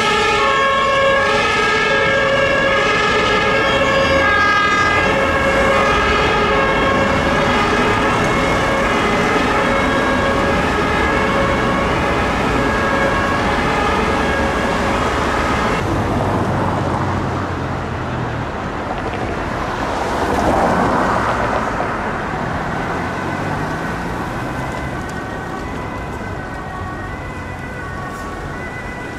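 German fire engine two-tone siren (Martinshorn) sounding, switching between a high and a low tone about once a second. About halfway through the siren grows fainter and a vehicle drives past, its engine and tyre noise loudest about two-thirds of the way in. A siren sounds again more faintly near the end.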